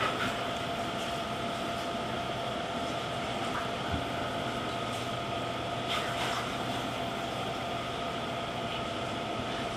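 Steady room hum and hiss with a faint continuous whine, and a couple of soft handling knocks about halfway through as the phone is picked up off the table.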